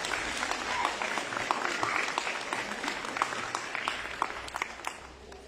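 Audience applauding a graduate whose name has just been called, a dense patter of many people clapping that dies away near the end.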